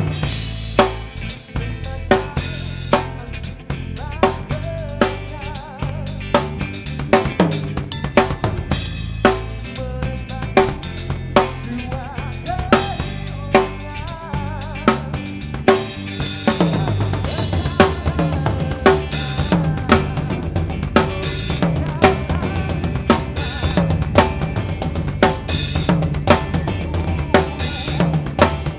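DW drum kit played in a steady groove of kick, snare and cymbals, over band music with a bass line. About halfway through the playing gets fuller and busier, with more cymbal.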